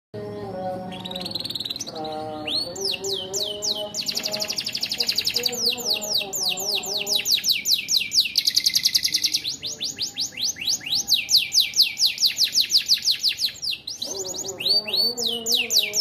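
Domestic canary singing, long runs of rapid, repeated downward-sweeping high notes and buzzy trills with brief breaks between phrases. Its song carries filler phrases learned from the bar-winged prinia (ciblek).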